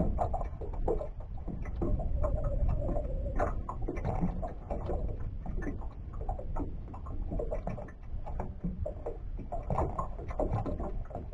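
Lake water lapping and slapping against the hull of a small aluminum boat, with wind rumbling on the microphone and scattered light clicks and knocks as a fish is unhooked and rod and line are handled.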